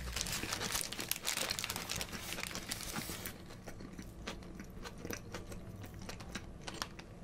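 Close-miked chewing of a mouthful of Big Mac, with many small wet clicks and crackles that thin out after about three seconds.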